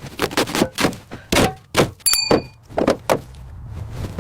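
A series of about nine hard knocks and thunks during car restoration work, with a short metallic ping ringing about two seconds in.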